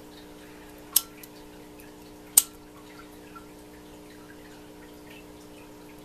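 Two sharp clicks about a second and a half apart, a disposable flint lighter's spark wheel being struck, over a steady low electrical hum.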